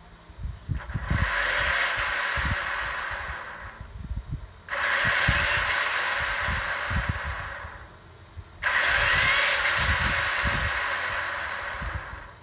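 Brushless motor and drivetrain of a Traxxas E-Revo 1/10 RC truck running with the wheels spinning freely in the air, three throttle runs of about three seconds each with short pauses between.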